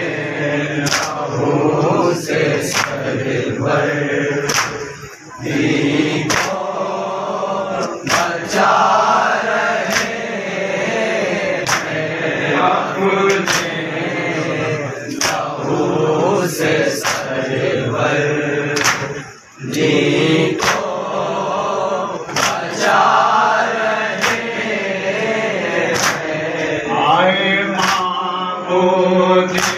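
Men's voices chanting a Shia noha lament in chorus, with the sharp slaps of chest-beating (matam) keeping a regular beat about once a second. The chanting breaks off briefly twice between lines.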